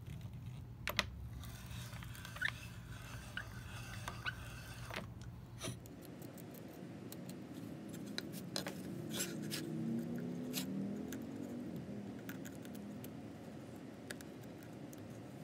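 An auger bit boring into a walnut saw-tote blank, the wood crackling with a few short squeaks. After about six seconds, a knife cutting and scraping at the walnut in scattered light clicks.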